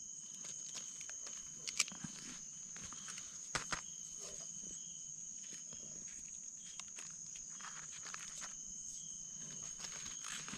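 A steady, high-pitched chorus of crickets, with intermittent rustling and scraping of dry leaf litter and soil as gloved hands dig around mushrooms with a small blade. The sharpest clicks come about two seconds and three and a half seconds in.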